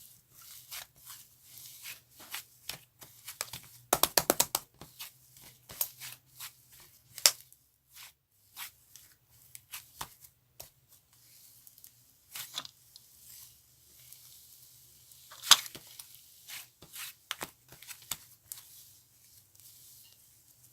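Cloud slime being stretched and pulled apart by hand: soft tearing and crackling with scattered sharp pops. There is a quick run of loud pops about four seconds in and a loud snap about fifteen seconds in.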